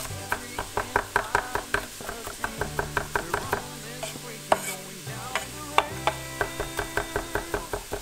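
Chef's knife mincing garlic on an end-grain wooden butcher block: rapid knocks of the blade on the board, about five a second, with a short pause around the middle.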